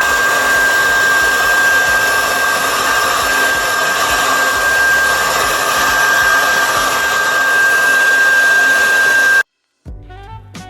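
Handheld hair dryer blowing steadily with a high motor whine, drying the wig glue at the hairline. It cuts off suddenly near the end, and quiet background music follows.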